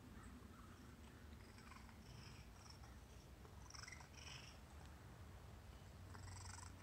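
Sphynx cat purring faintly, a low steady rumble, with a few soft short sniffs as it noses at the door frame.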